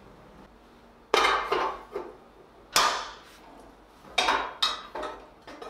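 Irregular metal clanks and knocks, about eight in a few seconds, the loudest about a second in and just before three seconds in: steel tools and workpiece knocking together as they are handled at the bench.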